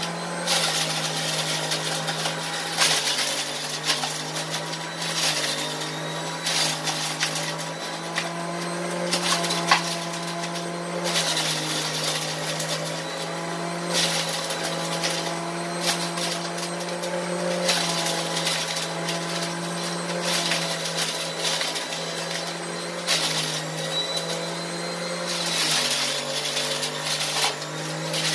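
Electric centrifugal juicer running as grapes are pushed down its feed chute. The motor hum steps lower and back up several times, with scattered crackles as the grapes are shredded.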